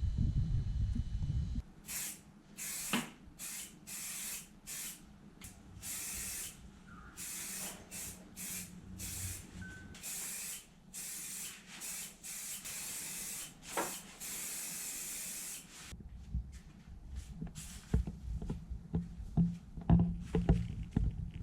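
Spray paint hissing out of the nozzle in a quick series of many short bursts, with a few longer passes, for most of the stretch. Low handling rumble and a few knocks before the spraying starts and again near the end.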